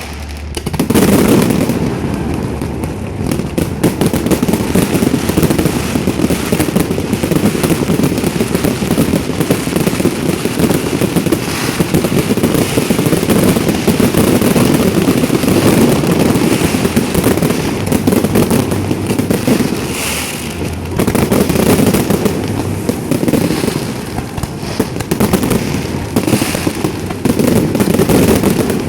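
Fireworks display going off continuously: many rapid bangs and crackles running together, easing briefly about twenty seconds in and again a few seconds later.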